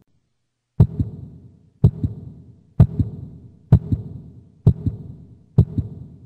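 Heartbeat sound effect: a double low thump, lub-dub, repeating about once a second, starting after a short silence.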